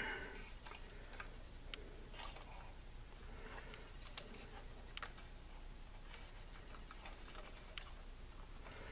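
Faint, irregular light clicks and ticks of insulated wires being pushed and routed inside a metal power-supply chassis, over a low steady hum.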